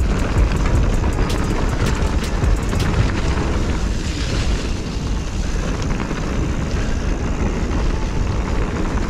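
Mountain bike riding a forest trail: wind rumbling on the camera microphone over tyre noise, with scattered clicks and rattles from the bike that thin out about three seconds in.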